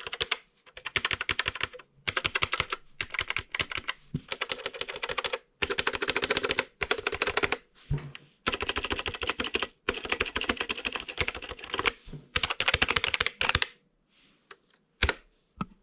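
Typing on a vintage TeleVideo SpaceSaver keyboard: quick runs of sharp key clicks in bursts of a second or two with short pauses between. Near the end the typing stops, leaving only a few single key presses.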